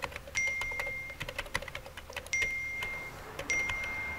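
Smartphone touchscreen keyboard tapping in quick runs of clicks, with a short, bright chat-message tone chiming three times as the messages appear.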